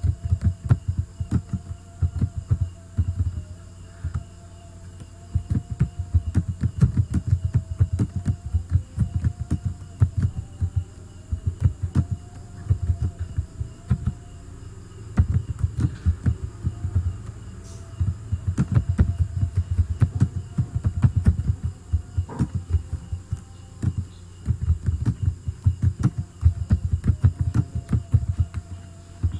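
Typing on a computer keyboard in quick runs of keystrokes with short pauses between them; the keystrokes come through as dull thuds. A faint wavering hum runs underneath.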